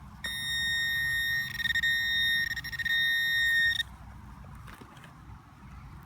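Handheld metal-detecting pinpointer buzzing with a steady high tone for about three and a half seconds, then cutting off suddenly: it is alerting on a metal target close to its tip in the dug hole.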